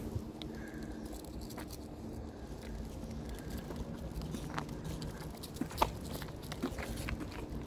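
Soft pattering and scattered light clicks, with two sharper clicks about halfway through, from walking a small dog on a leash over brick paving, over a faint steady low hum.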